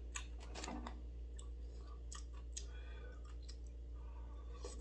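Chopsticks clicking against a bowl in short scattered taps, with soft eating sounds as noodles and rice cakes are picked up and eaten, over a low steady hum.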